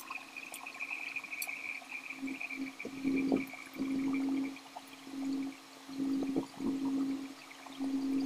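Wet chewing and sucking of juicy lansones fruit. From about two seconds in, a low, steady-pitched hum comes and goes in short pulses.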